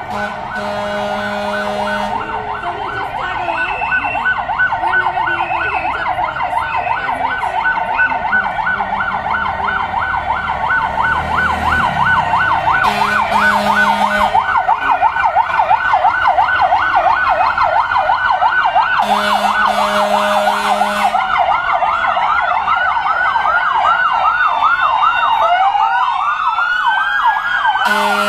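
Several emergency-vehicle sirens of police cars and fire engines sound together in a fast yelp, growing louder over the first few seconds as they approach. Near the end a slower wail rises and falls. A deep steady horn blasts four times, each blast about a second and a half long.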